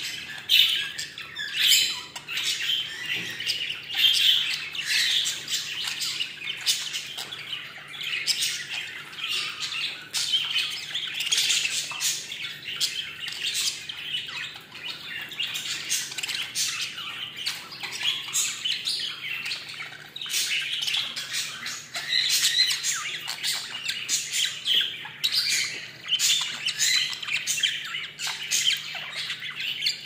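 Several budgerigars chirping and singing without a break, a dense overlapping stream of short, sharp, high calls.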